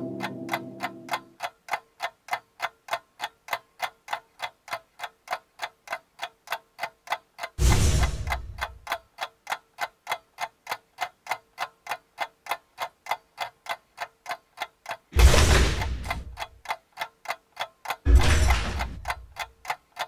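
Steady, fast clock ticking, a few ticks a second, with a faint even tone beneath it. A low ringing tone dies away about a second in. Three sudden loud noise hits, each fading over about a second, break over the ticking about 8, 15 and 18 seconds in.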